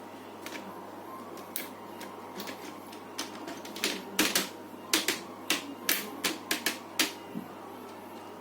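An irregular run of sharp clicks and taps from handling laptop parts during reassembly, growing denser and louder from about four seconds in.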